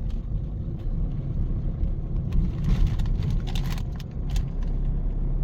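Road and engine noise inside a moving Toyota Hilux: a steady low rumble.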